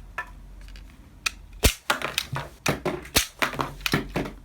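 A .45 ACP rubber-bullet toy revolver being cocked and fired: a run of sharp clicks and knocks from the hammer and cylinder, with two louder cracks about a second and a half in and just past three seconds. Rubber bullets skim and clatter across a table.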